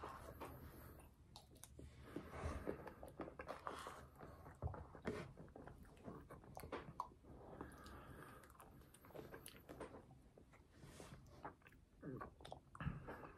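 Quiet close-up chewing and mouth sounds of someone eating spoonfuls of M&M's McFlurry, with irregular small clicks of the plastic spoon in the paper cup.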